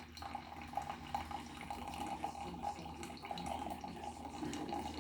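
Water running and splashing into a vessel, a steady stream with small irregular splashes, while water is prepared for making coffee.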